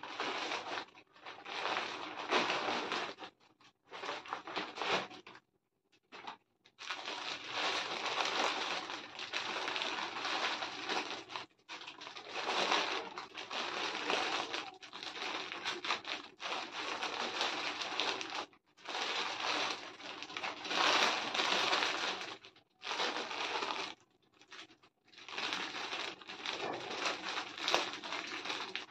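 Rustling and crinkling of packaging being handled: a paper courier mailer opened and crumpled, then the clear plastic bag around a hoodie crackling as it is turned over. The noise comes in bursts of a few seconds with short pauses.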